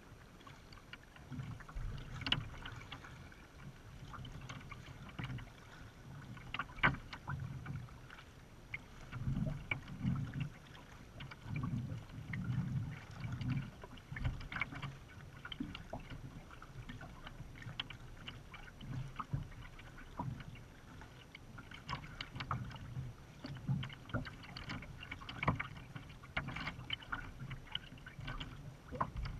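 Water lapping and splashing against a kayak's hull as it moves across open water, heard up close at the bow: irregular soft thuds with small splashes and drips.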